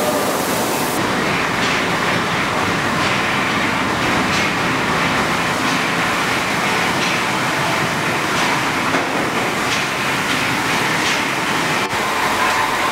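Automatic car wash tunnel running: a steady rush of water spray and machinery rumble, with a faint clatter every second or so.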